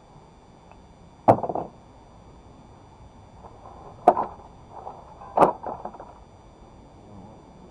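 Three sharp knocks, each followed by a short clatter, the last two about a second and a half apart.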